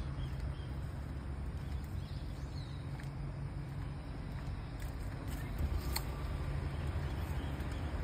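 Outdoor roadside ambience: a steady low rumble with a few faint clicks.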